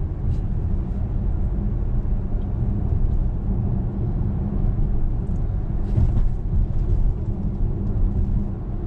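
Steady low rumble of road and engine noise heard inside a Kia Carnival's cabin while it is driven.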